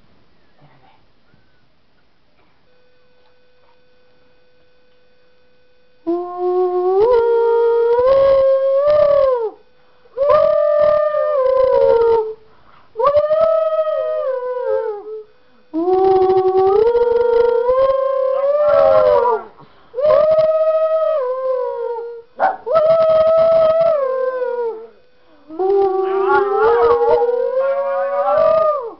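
Schnauzer howling along to a tune that a person makes: long drawn-out notes that rise, hold and fall, in about seven phrases with short breaks, beginning about six seconds in after a faint steady tone. At times two howling voices overlap.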